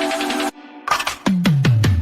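Electronic background music in a dubstep or drum-and-bass style. It cuts out briefly about half a second in, then returns with a quick run of drum hits, each sliding down in pitch.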